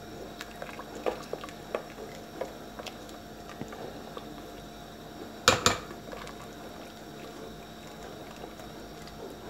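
Wooden spoon stirring freekeh into broth in a stainless steel pot: liquid sloshing with light knocks of the spoon. A sharp double knock comes about halfway through.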